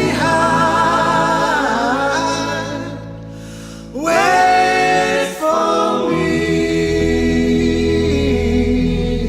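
Several voices singing a wordless sustained harmony over the band, closing out the song: the sound dips about three seconds in, a new chord comes in about four seconds in and is held, with a low bass note joining about two seconds later.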